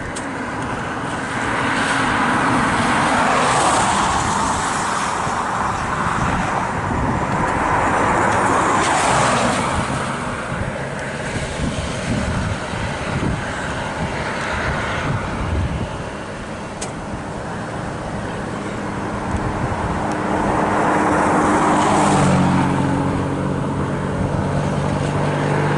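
Road vehicles passing: tyre and engine noise swells and fades several times. A steady low engine hum comes in near the end.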